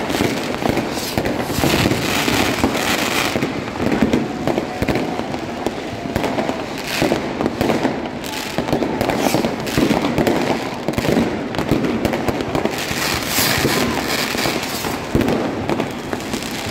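Many fireworks going off continuously, with rockets and firecrackers banging and crackling in rapid succession, with no pause.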